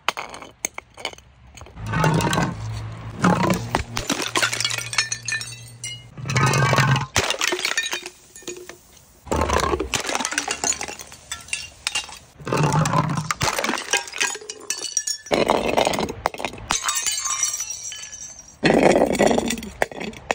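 Glass jars and bottles tumbling down concrete steps: about six bursts of clinking, knocking and breaking glass, each a second or two long, with quieter clicks in between.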